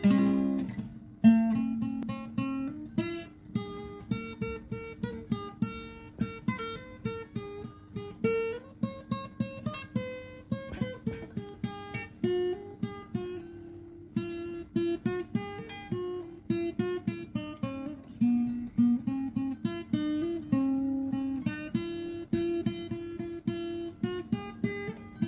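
Background music: a plucked guitar melody, note after note at a steady pace.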